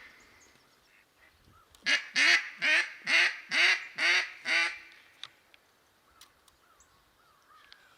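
Six loud mallard-hen-style quacks in a quick series, each dropping in pitch, followed by a few faint quacks further off.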